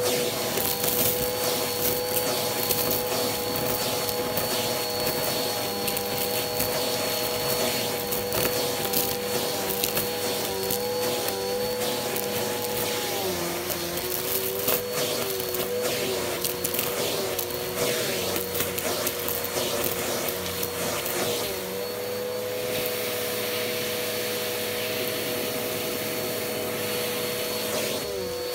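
Vacuum cleaner with a crevice tool running steadily on carpet, its motor whine wavering in pitch for a few seconds in the middle. Scattered clicks and crackles come from small beads and debris being sucked up through the tool.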